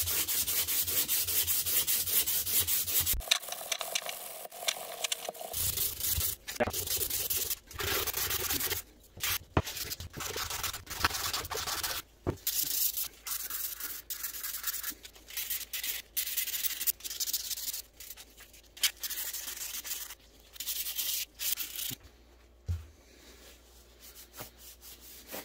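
Emery cloth rubbed by hand back and forth along a rusty suspension shaft to polish off the rust: quick scratchy strokes in bouts with short pauses, thinning out and getting quieter near the end.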